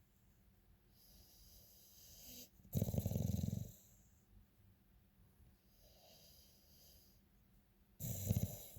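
Snoring: two loud snores about five seconds apart, one about three seconds in and one near the end, with fainter whistling breaths between them.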